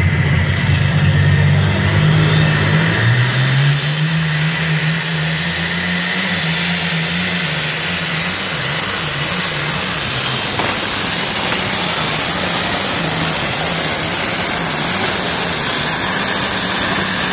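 Competition pulling tractor's diesel engine running flat out as it hauls the weight sled down the track. Its pitch climbs over the first few seconds, then holds high and wavers, with a high whine growing stronger above it.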